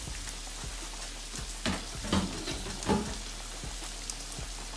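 Diced bacon, onion and minced garlic frying in a stainless steel skillet, with a steady sizzle and a few sharper crackles about halfway through.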